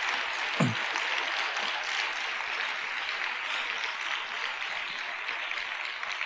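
Audience applauding, with a brief voice from the crowd under a second in; the clapping thins out toward the end.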